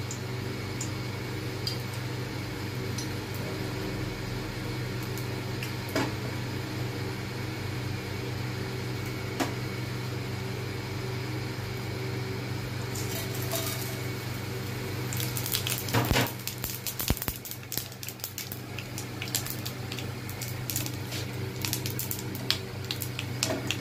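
Whole spices tipped into hot oil in a frying pan, sizzling and crackling with quick pops from a little over halfway in, with a clatter as they go in. A steady low hum runs underneath, and the oil gives only an occasional pop before the spices are added.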